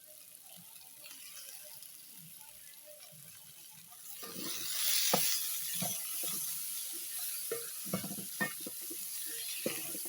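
Potatoes, onion and carrot frying in a pan, a faint sizzle at first. About four seconds in the sizzle suddenly gets louder as tomatoes go into the hot pan, then a spoon knocks and scrapes several times as the pan is stirred.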